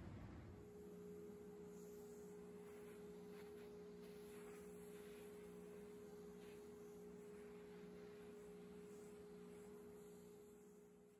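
Shop vacuum running with a steady hum while its hose nozzle is passed over a sanded wooden workpiece to pick up the sawdust.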